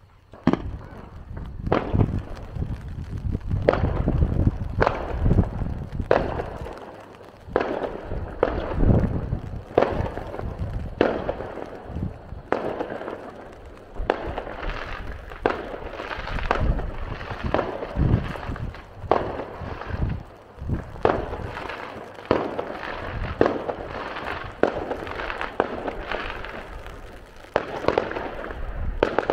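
Fireworks display: aerial shells bursting in a steady run of sharp bangs, about one to two a second, over a low rumble.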